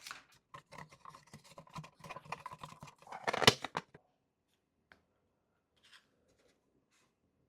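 3D-printed plastic fidget toy clicking and rattling as its parts move, with a louder cluster of clicks about three and a half seconds in, then a few faint ticks.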